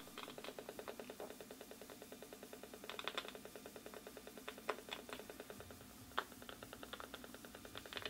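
Faint, rapid, even ticking with a few louder clicks scattered through, from an Acoustimeter AM-10 RF meter's audio output, which renders the pulsed microwave signals it picks up as sound. The pulses are background radio, probably from cell towers, possibly Wi-Fi.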